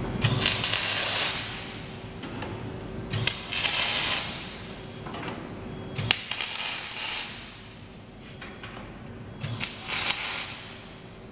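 Electric arc welding in four short bursts of crackling, sizzling arc, each about a second long and a few seconds apart, as in a series of tack welds.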